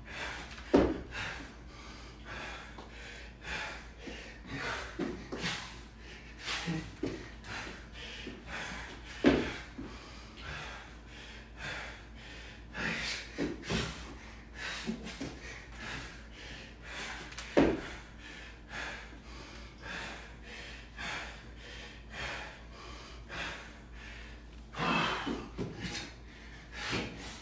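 A man breathing hard and blowing out forceful exhales while doing burpees over a barbell, with thuds of his body dropping to and landing on the rubber floor mat. Three sharp thumps stand out, about eight seconds apart.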